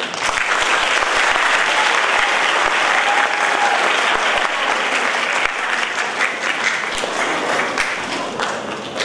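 Audience applauding, full from the start and thinning out over the last few seconds.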